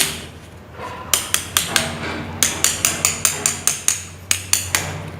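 Small hammer tapping lightly and quickly, about four or five taps a second in short runs starting about a second in, driving wire coils down into the slots of a DC motor armature during rewinding.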